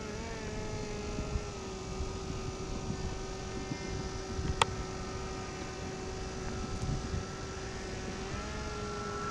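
Electric ducted-fan motor of a radio-control F-16 model jet whining at a steady pitch while in flight, the pitch stepping up a little near the end. There is one sharp click about halfway through.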